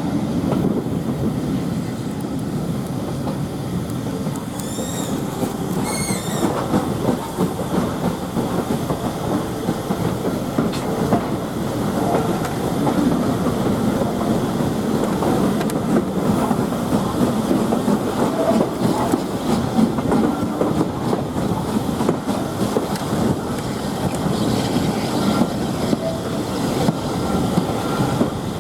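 Steady running noise of a heritage railway passenger train heard on board: wheels rumbling and clicking over the rail joints as the coach rolls along. A few brief high chirps come about five seconds in.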